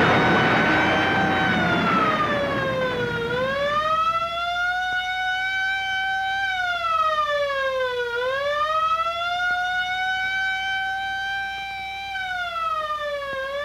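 Wailing siren that slowly swoops down and back up in pitch about every five seconds, holding its high note between the dips. A loud rushing noise fades out under it over the first few seconds.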